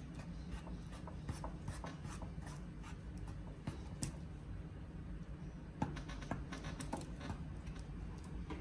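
A plastic spoon stirring and scraping thick blue fluffy slime in a bowl, with irregular small clicks and rubbing scrapes as the glue and activator are mixed. A couple of sharper clicks stand out, about four seconds in and near six seconds.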